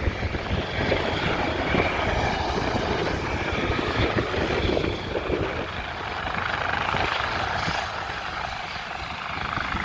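Helicopter rotors and turbine engine running steadily as it hover-taxis low over the ground, a dense beating noise that eases slightly about six seconds in.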